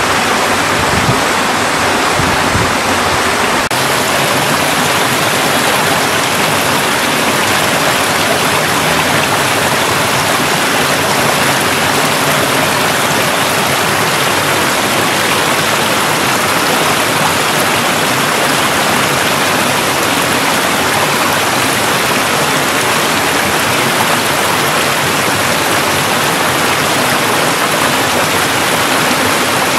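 Mountain valley stream rushing steadily, with a slight change in tone about four seconds in.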